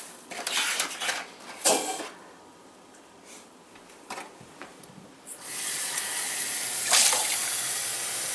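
Kitchen faucet running cold water into a stainless steel sink, turned on about five seconds in and running steadily. A few light knocks and clinks of kitchen things come before it.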